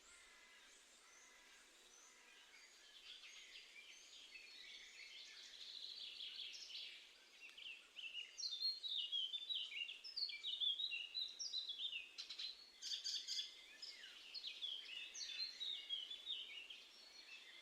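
Songbirds singing outdoors, a busy run of quick, mostly falling chirps and trills that grows louder about eight seconds in.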